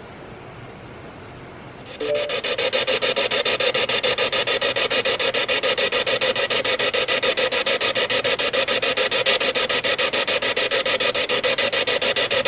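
Spirit box switched on about two seconds in: a radio scanner sweeping rapidly through stations, giving loud static chopped into a fast, even stutter.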